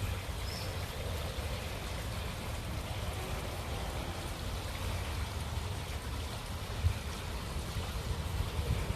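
Steady rush of high floodwater, with wind rumbling on the microphone and one brief thump about seven seconds in.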